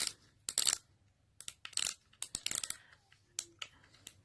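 Front drag knob of a spinning reel being unscrewed by hand to free the spool: a string of short, irregular metallic clicks and rattles with brief pauses between.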